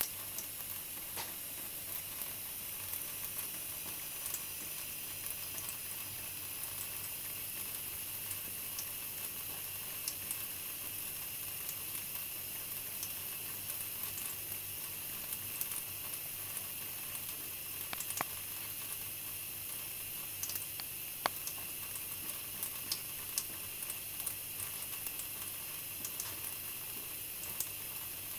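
Thin stream of tap water running steadily from a kitchen faucet into the sink, a steady hiss with scattered faint ticks.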